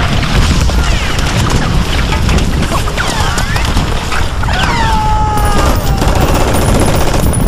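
A downhill mountain bike ridden fast over rough, muddy ground, heard from its handlebar: a dense rattle of clatter and knocks from the bike over a constant low rumble, with a few brief falling squeals about halfway through.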